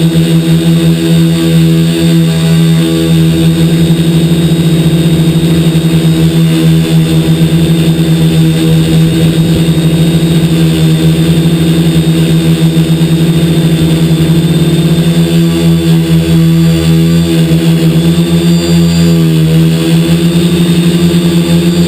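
Quadcopter's DJI 2212 brushless motors and propellers running in flight, a loud steady buzzing hum whose pitch wavers up and down in the last several seconds as the throttle changes.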